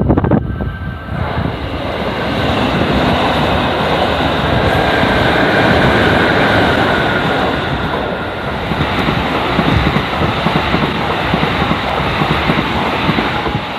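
Electric train passing close by: a steady, loud rush of wheels on rail and running gear, with a faint whine about midway through. It dies away just after.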